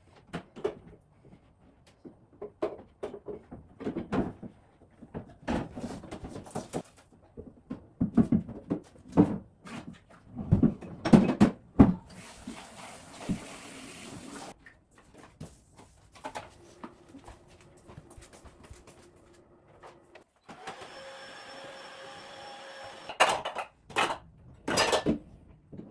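Household cleaning sounds: a string of knocks and clatters of objects being handled and set down. There is a hiss about halfway through, and near the end a small machine runs for a few seconds with a steady whine.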